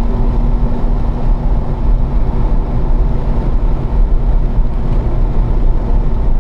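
A car's engine runs steadily at about 3,500 rpm in fourth gear at around 80 mph, heard from inside the cabin with heavy wind and road noise. The engine note holds even, with no revving up or down.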